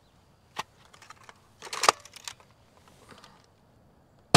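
Plastic clicks and rattles of a Dart Zone Pro MK-1 spring-powered foam-dart blaster being loaded and primed, then one sharp, loud shot near the end as it fires a dart.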